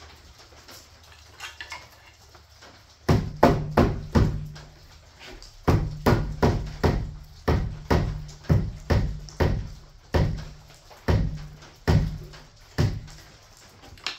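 Hammer blows on a wooden framing header overhead: a quick cluster of strikes about three seconds in, then a steady run of about two strikes a second that stops shortly before the end.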